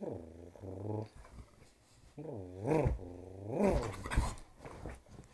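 Dog growling in pitched, drawn-out grumbles that rise and fall: a short bout at the start, then a longer one from about two seconds in with two swells in pitch.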